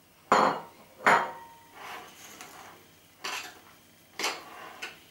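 A spoon knocking sharply against a glass mixing bowl twice, then scraping and clinking in short strokes as it stirs a thick, rough muffin batter.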